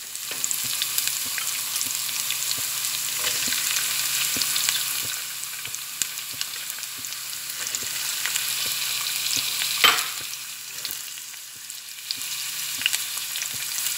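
Sliced onions sizzling and crackling steadily in hot oil with ginger-garlic paste in a stainless steel pan, with one sharp knock about ten seconds in.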